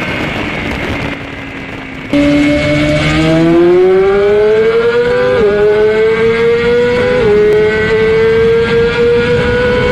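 BMW S1000RR four-cylinder engine under hard acceleration. Its pitch climbs steadily and drops sharply twice as the rider upshifts. In the first two seconds a quieter engine tone falls in pitch under wind noise as another run slows down, then the loud acceleration cuts in suddenly.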